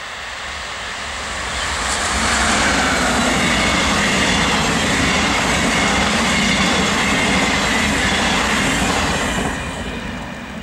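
Electric regional passenger train passing close by at speed, the running noise of its wheels on the rails. It swells over the first two seconds, holds loud and steady as the coaches go by, and fades near the end.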